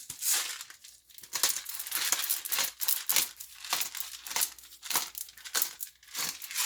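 Salt and pepper being dispensed by hand: a run of short, gritty, scratchy strokes, several a second, with no steady tone.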